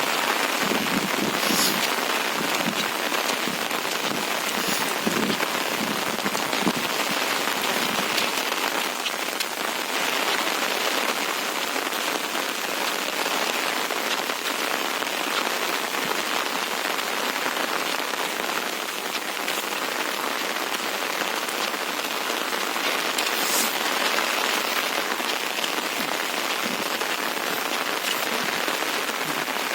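Steady, dense hiss of a rain- and windstorm, even in level throughout, with a few brief crackles.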